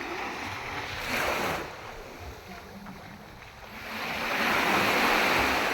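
Sea waves washing in on the shore: one short wash about a second in, then a larger wave swelling up from about halfway through and easing off near the end.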